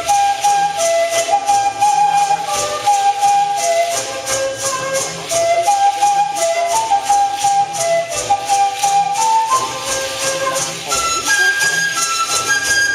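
Folk dance music: a flute melody over a steady beat of shaken rattles, the melody climbing higher near the end.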